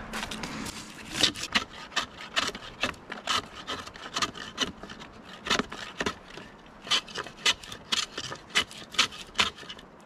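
A hand tool shaving and scraping the flat face of a freshly split log in short, uneven strokes, about two a second, smoothing off splinters.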